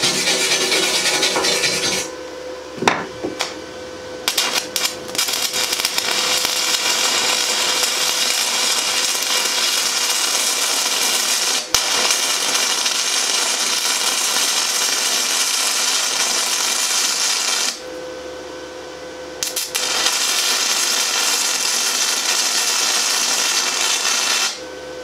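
A hand wire brush scrubs a rusty steel plate for about two seconds. Then comes a stick-welding arc at about 70 amps: a few short crackles as the rod is scratch-started, then a steady crackling hiss of the arc for about thirteen seconds. The arc stops briefly and runs again for about five seconds before cutting off.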